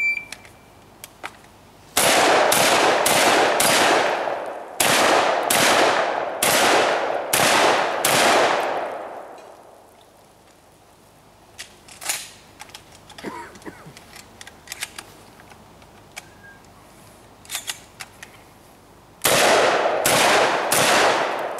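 A shot-timer beep, then a shotgun firing a rapid string of about nine shots, roughly two a second, each with a ringing echo. After a pause filled with small metallic clicks of shells being reloaded, a second quick string of shots follows near the end, fired after misses.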